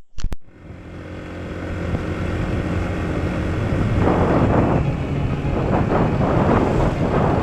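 Yamaha NMAX scooter engine running on the move, rising in level over the first two seconds, with wind buffeting the microphone from about four seconds in. A couple of sharp clicks at the very start.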